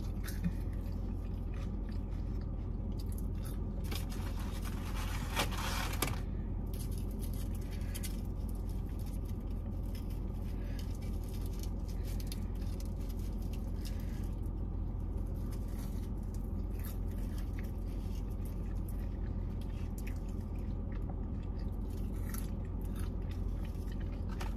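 Close-up eating sounds: McDonald's french fries being chewed and crunched with soft mouth noises, over a steady low hum, with a louder scrape of noise about four to six seconds in.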